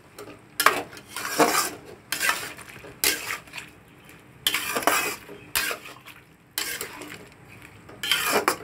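Flat metal spatula scraping and clinking against a metal kadai while stirring a thick potato curry, in short strokes about once a second.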